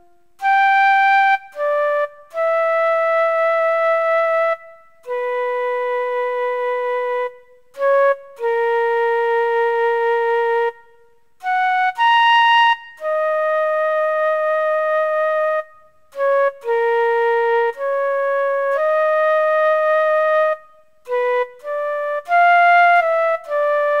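Background music: a slow solo melody on a single wind instrument, mostly long held notes with short pauses between them, turning to quicker, shorter notes near the end.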